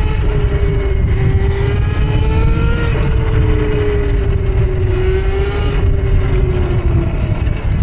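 Rizzler electric minibike's motor whining as it rides through snow. Its pitch rises and falls gently with the throttle, then fades away about seven seconds in, over a heavy low rumble.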